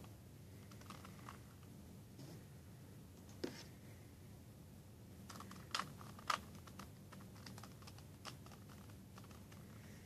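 A plastic 3x3 Rubik's Cube being turned by hand: faint clicking and clacking of its layers as they turn, with three sharper clicks, one about a third of the way in and two just past the middle.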